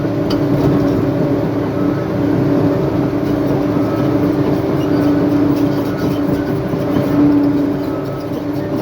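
Diesel engine of a heavy earthmoving machine, such as an excavator or bulldozer, running steadily with a constant drone, dipping slightly near the end.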